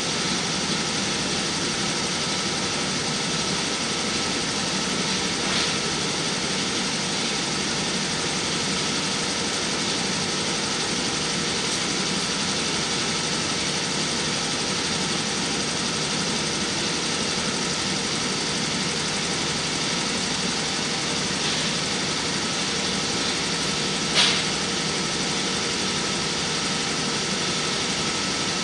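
Steady mechanical hum and hiss of background machinery or ventilation, unchanging throughout. Over it come two short clicks of hardware as the washers and nuts go onto the rack door's block-off panel, a faint one about six seconds in and a louder one near the end.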